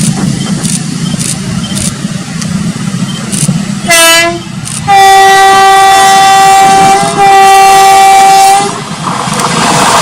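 Indian Railways train horn sounding one short blast about four seconds in, then a long loud blast broken once by a brief gap. Before it, a steady low rumble with regular clicks from the moving train; the rumble builds again near the end.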